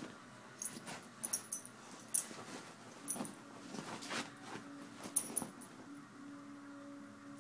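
Scattered light taps and rustles as a pit bull wags its tail and moves about on a bed beside a cat. A faint steady low hum runs under them in the second half.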